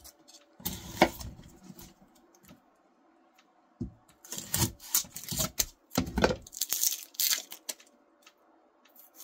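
Kitchen knife cutting through raw onions and knocking on a cutting board, with crisp crunching cuts. There is one short group of cuts about a second in, then a quick run of cuts from about four to seven seconds.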